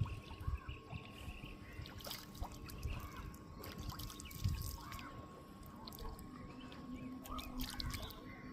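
River water lapping and trickling at a bathing ghat, with frequent dull low bumps and scattered short bird chirps over it.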